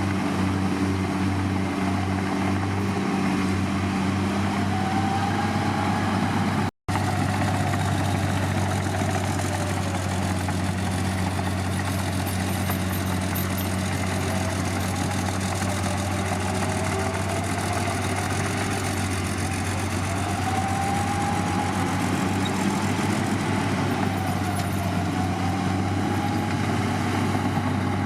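Heavy diesel earthmoving machinery running steadily, a low engine drone with a fainter whine that rises and falls. The sound drops out for an instant about seven seconds in.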